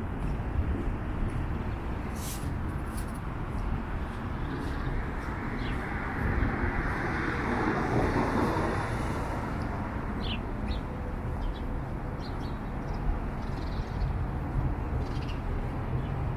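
City street ambience: a steady low hum of traffic, with one vehicle passing a little past the middle, and short bird chirps now and then.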